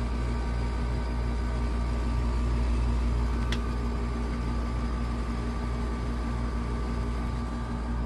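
Air conditioner outdoor condenser unit running with a steady low hum from its compressor and fan. A faint brief click about three and a half seconds in.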